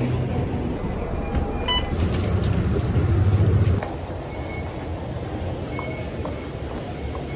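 A city bus's engine runs at a stop under street noise. A short beep and some clattering come about two seconds in. After a cut about four seconds in, this gives way to quieter, more even station ambience with faint ticks.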